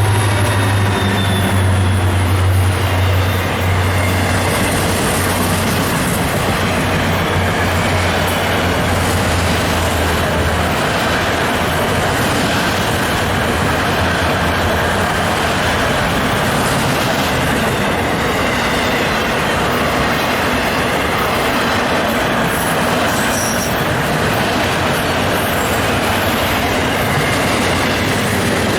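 Florida East Coast freight train rolling past close by: a steady rumble and rattle of cars over the rails. A deep locomotive engine hum fades out about ten seconds in.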